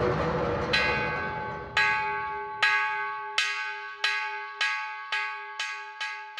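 A bell struck nine times, the strokes coming faster and faster, each one ringing on under the next.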